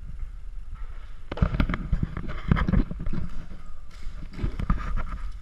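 Airsoft guns firing in quick bursts of sharp pops, about three clusters of rapid shots with the hall's echo behind them.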